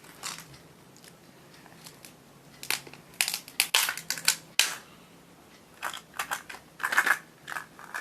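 Plastic packaging of a toy surprise egg being handled and opened: a run of sharp crackles and clicks about three seconds in, and another group near the end.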